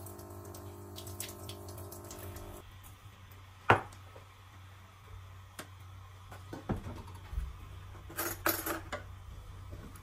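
Espresso machine portafilter being handled: one loud metal clack about a third of the way in, a few lighter knocks, then a spoon scraping the spent coffee puck out of the metal filter basket near the end. A steady hum cuts off after about two and a half seconds.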